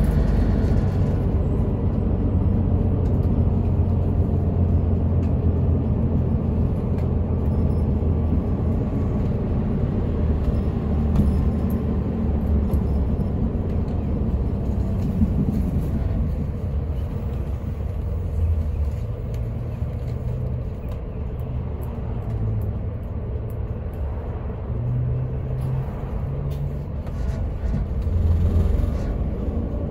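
Inside a moving city route bus: the steady low rumble of the engine and the road, a little quieter in the second half.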